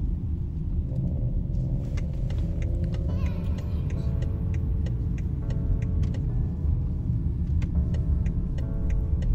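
Steady low road and engine rumble inside a moving car's cabin. About three seconds in, quiet background music with a regular ticking beat fades in.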